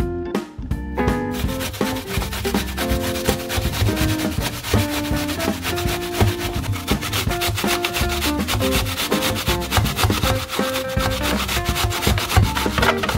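Apple being grated on a stainless-steel box grater: quick, continuous rasping strokes that start about a second in, over background music.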